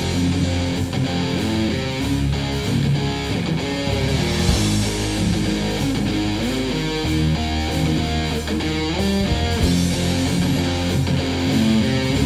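Background rock music with strummed electric guitar.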